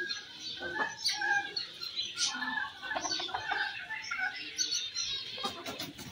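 Birds chirping and calling in short, scattered, overlapping notes around a pen of Polish cap chickens.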